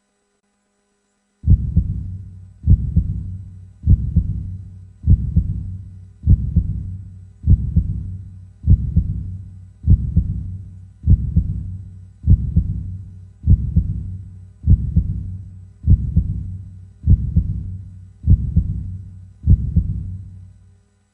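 Heartbeat sound effect: a slow, even pulse of low beats, about one every 1.2 seconds, each dying away before the next. It begins after about a second and a half of silence.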